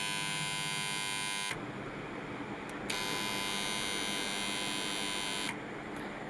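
A motor starter's contactor buzzing with a harsh, rattling hum; the rattle drops out twice for a second or so and comes back with a click. This kind of contactor buzz is often caused by dust, dirt or carbon on the contactor.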